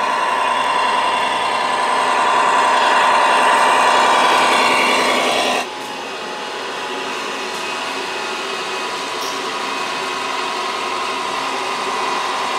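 Radio-controlled scale MAN semi-truck model driving with a loaded tipper trailer: a steady, raspy mechanical whine made of several pitches at once. The level drops abruptly about five and a half seconds in, then the sound carries on a little quieter.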